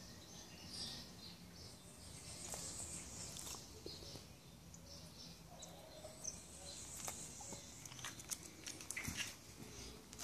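Quiet background with faint, scattered high bird chirps, and a few light clicks and taps in the last few seconds.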